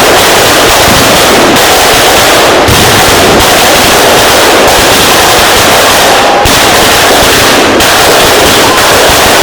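Fireworks display firing a dense, unbroken barrage of firecracker bursts, so loud that the recording is overloaded throughout.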